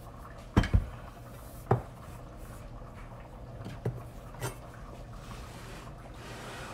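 Knocks on a cutting board as a whole butternut squash is set down and a chef's knife is picked up: three sharp knocks in the first two seconds, then two fainter taps near the middle.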